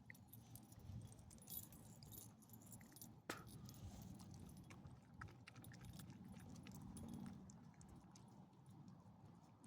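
Faint, scattered light jingling and clicks, with one sharper click a little past three seconds in, over near silence.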